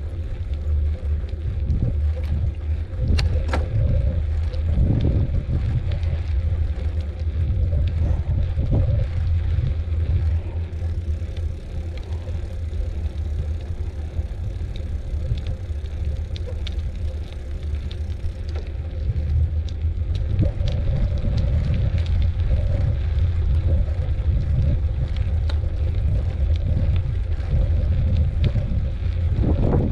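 Wind buffeting the microphone while riding a bicycle on a trail, a steady low rumble, with scattered brief clicks and rattles from the bike and the ground under the tyres.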